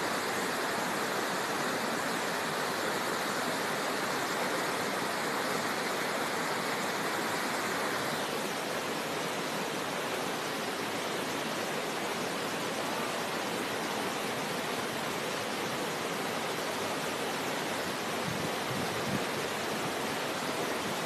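Fast, shallow river rapids rushing over rocks: a steady, unbroken wash of white water.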